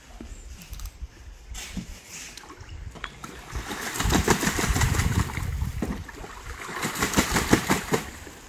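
A Muscovy duck bathing in a small plastic pond, beating its wings and splashing water in quick strokes: a longer bout about four seconds in and a second one near the end, with quieter sloshing between.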